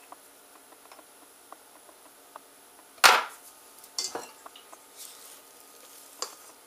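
Kitchenware knocks and clatter: a sharp clunk about three seconds in, another about a second later and a lighter one near the end, with faint clicks between.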